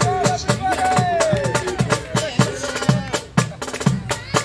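A marching drumline of snare drums and tenor drums playing a steady cadence, with about three strong beats a second and crisp stick strokes between them.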